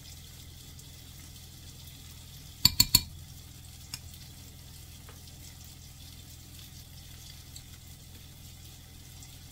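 Hush puppy batter frying in hot peanut oil, a steady sizzling hiss. About three seconds in, a metal spoon knocks sharply three times in quick succession, and a few lighter clinks follow.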